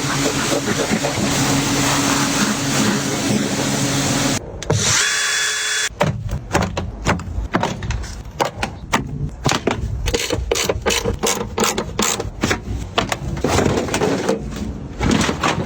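Workshop power-tool sounds: a steady hissing hum for about four seconds, a brief whine, then a run of rapid, irregular sharp clicks and knocks.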